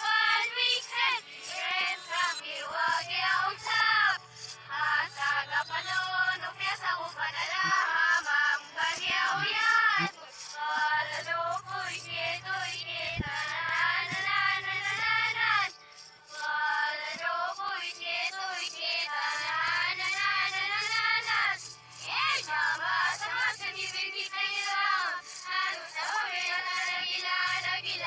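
Many children's voices cheering at once, high and wavering, layered over music, with short breaks twice along the way.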